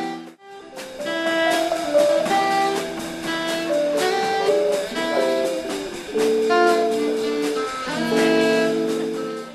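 Instrumental background music: chords and a melody of held notes. It drops out briefly just after the start and cuts off suddenly near the end.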